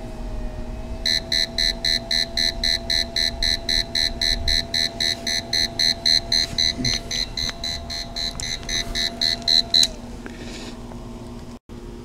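Cobra 400-watt DC-to-AC power inverter sounding its warning alarm: rapid, evenly spaced electronic beeps, about three a second, over a faint steady whine, stopping about ten seconds in when it is switched off. It is a fault alarm at switch-on; when restarted the inverter runs with no alarms.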